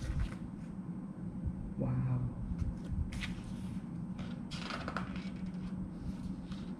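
Glossy photo-book pages being handled and turned, with paper rustles about three seconds in and again near five seconds, over a steady low hum. A brief hummed "mm" from the reader about two seconds in.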